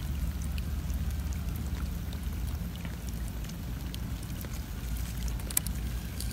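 Light rain pattering in faint scattered ticks, over a steady low rumble.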